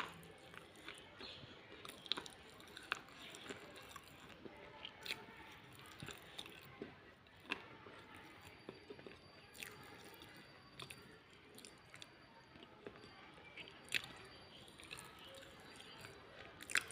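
Close-up chewing and crunching of baked clay pot pieces: irregular sharp cracks and crackles, with sharper bites about five, seven and fourteen seconds in and again near the end.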